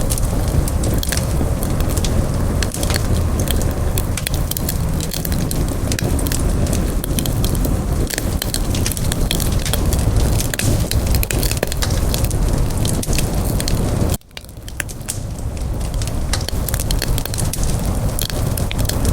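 Campfire burning, with dense crackling and popping over a steady low rumble. About fourteen seconds in the sound cuts out for an instant, then comes back.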